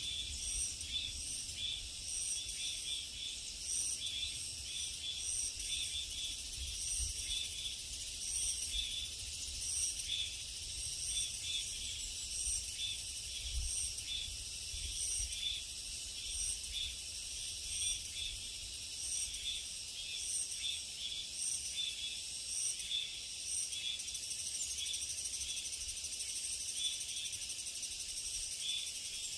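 Chorus of summer insects singing in steady, high-pitched pulses that repeat about twice a second, with a faint low rumble underneath.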